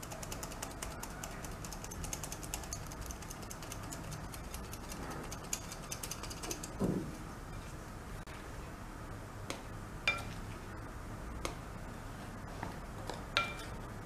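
Hand-operated stainless steel flour sifter, its mechanism ratcheting as it sifts flour and cocoa into a bowl. The clicking is rapid for the first half and slower later. There is a short thump about seven seconds in, and two sharper ringing clinks near the end.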